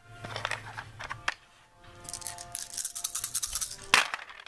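Handful of plastic dice shaken and rolled onto a gaming table, clicking and clattering, with one sharper clack about four seconds in.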